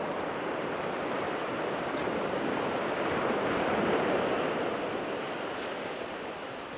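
Sea surf breaking and washing up the beach, swelling louder about three to four seconds in and then dying away.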